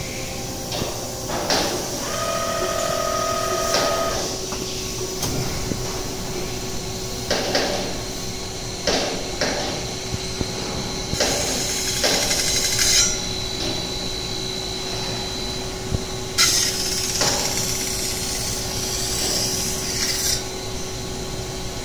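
CNC servo spinning reducing machine working a steel catalytic converter shell: a steady hum under repeated clanks and knocks of clamps and tooling. A brief whine comes about two seconds in, and two long stretches of high hiss come about halfway through and near the end, while the spinning rollers work the shell end.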